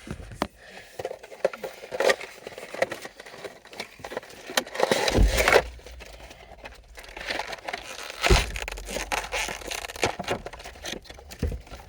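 A Funko Pop box being opened and handled: cardboard and plastic packaging rustling, crinkling and scraping in irregular bursts, with two dull knocks about five and eight and a half seconds in.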